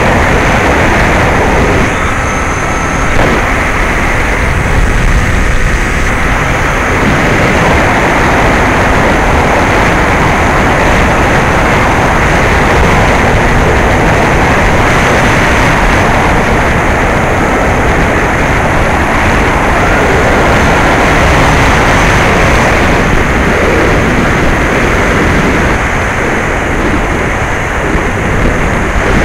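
Steady loud rush of wind and propeller noise on a Bixler 2 RC plane in flight, its brushless electric motor driving a 9x6 propeller, with a faint high whine now and then.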